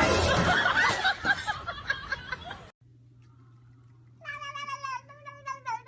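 A loud, dense burst of noise that cuts off suddenly, then a low steady hum with a domestic cat meowing about three times in long, drawn-out calls near the end.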